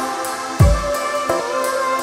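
Instrumental background music with a steady beat and one deep drum hit a little over half a second in.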